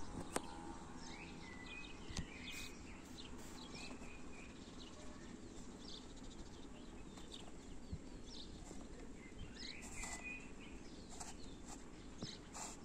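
Faint outdoor background noise with small birds chirping now and then, in short bursts of a few chirps. A few faint clicks are heard along with them.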